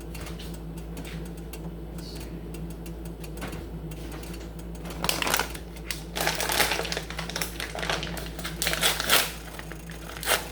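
Quick clicking and rattling from ingredients and utensils being handled in a cooking pan, starting about five seconds in, over a steady low hum.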